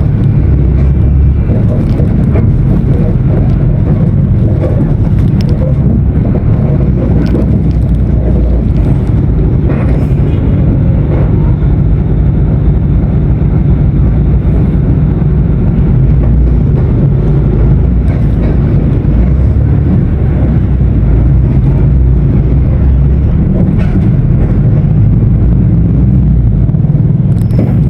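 Mercedes-Benz OF 1519 BlueTec 5 bus's diesel engine running as a steady low rumble, with a few light rattles now and then.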